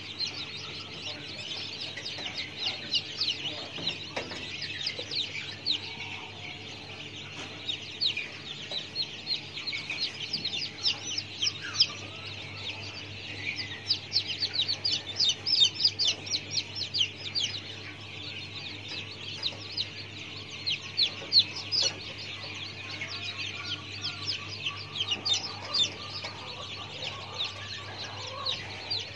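Birds chirping: a dense, continuous run of short high chirps, louder in places, over a steady low hum.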